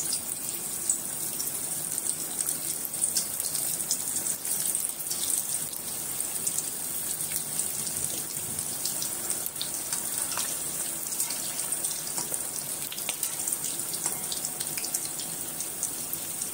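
Sabudana (tapioca pearl) vadas deep-frying in hot oil in a kadhai: a steady sizzle with many small crackles and pops as the oil bubbles around the freshly added vadas.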